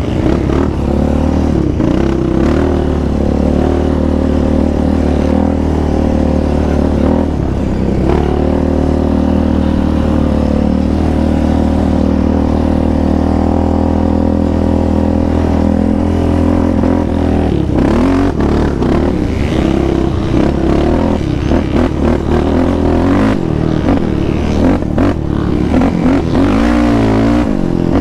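Yamaha Raptor 700R quad's single-cylinder engine running under load on a dirt trail. It holds a steady pitch for the first half, then revs rise and fall with throttle changes, with rattles and knocks from the quad over rough ground.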